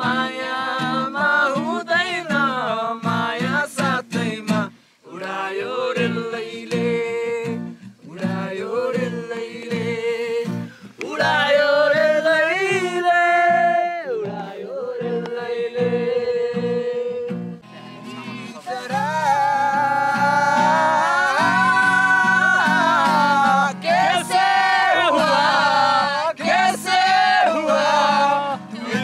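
A Nepali folk-style song: a voice singing long, ornamented held notes that bend and waver, over strummed guitar. It pauses briefly about five seconds in, and the singing grows fuller and steadier from about two-thirds of the way through.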